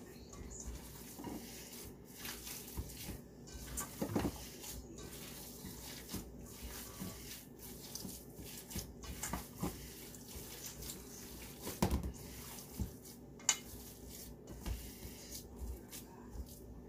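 Hands mixing a raw meatloaf mixture of ground meat, egg and chopped peppers and onions in a stainless steel bowl, with irregular clinks and knocks of the metal bowl.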